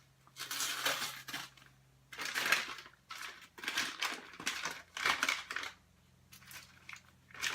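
Plastic packaging around raw chicken breasts crinkling and rustling as it is pulled open, in about five bursts, the last about five seconds in.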